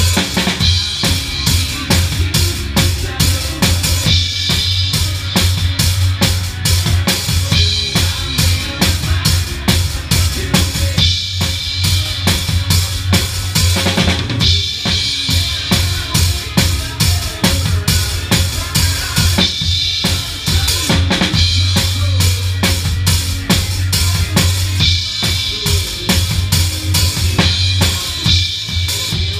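Live band playing, heard from right at the drum kit: kick drum, snare and cymbals loud and close in a steady stream of hits, over a strong bass line.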